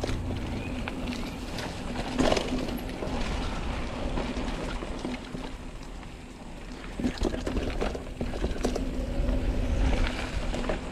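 Santa Cruz Chameleon mountain bike rolling along a sandy dirt trail: tyre noise over a steady low rumble, with knocks and rattles from the bike over bumps, sharpest about two seconds in and again in several clusters later on.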